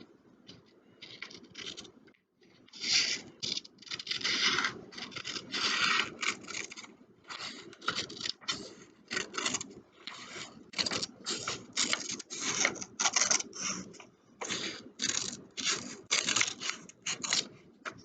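Scissors cutting through a paper worksheet: a run of repeated crisp snipping strokes, roughly one or two a second.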